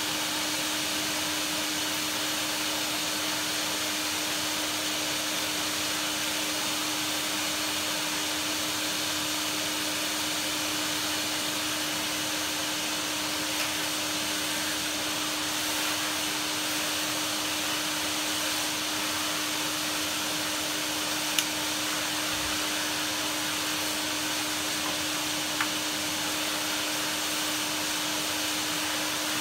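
A vacuum cleaner motor running steadily: an even rushing noise with a constant hum, unchanged throughout, with a few light clicks or knocks.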